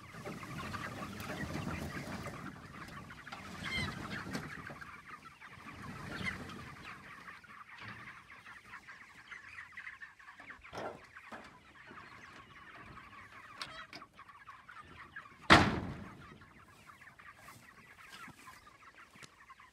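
A flock of broiler chickens clucking inside a metal-roofed pasture shelter, fuller in the first several seconds while the shelter is being pulled across the grass. A single sharp knock about fifteen and a half seconds in is the loudest sound.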